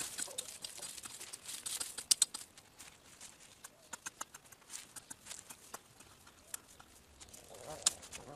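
Garden hoe chopping into dry, crumbly soil to dig a planting hole, each stroke a sharp crunchy hit with grit and clods scattering. The strikes come fast at first, then thin out to sparser hits after about two seconds.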